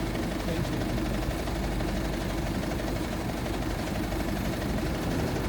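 Steady low engine rumble, like a vehicle engine idling.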